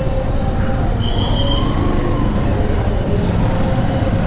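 Motorcycle engine running in slow-moving street traffic, a steady low rumble mixed with the noise of nearby scooters and cars.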